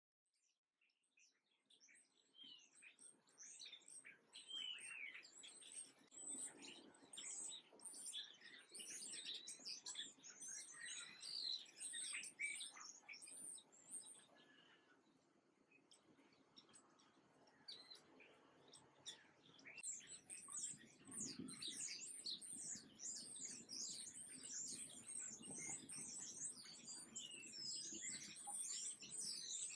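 A flock of small songbirds chirping and twittering in quick, overlapping calls. The chirps fade in over the first couple of seconds, thin out around the middle and turn busy again from about two-thirds of the way in.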